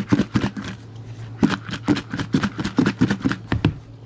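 Shrimp in marinade being shaken by hand inside a covered plastic bowl: a fast, even run of knocks and rattles, about four a second, that stops shortly before the end.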